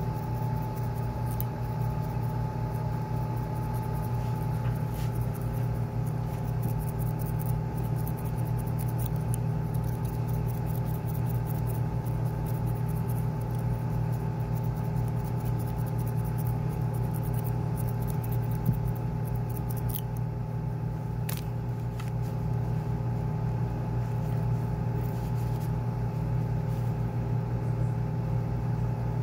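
Steady low machine hum with several constant tones, unchanging throughout, with a few faint sharp ticks here and there.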